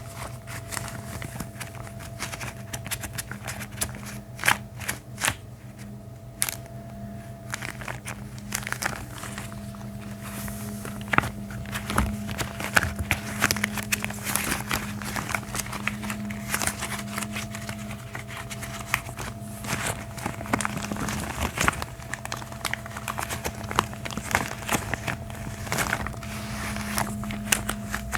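Gloves rubbed, crinkled and handled close to the microphone: irregular crackles with sharper snaps here and there, over a steady low hum.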